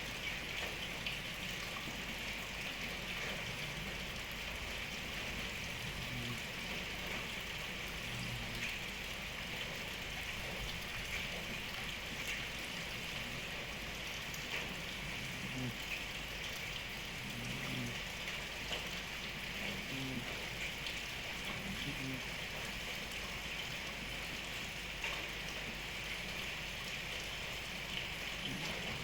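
Steady rain pattering, with a sleeping cat's faint low snores every few seconds.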